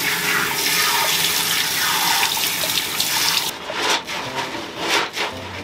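Water running from a bathroom shower in a steady hiss, shut off abruptly about three and a half seconds in, followed by a few short knocks.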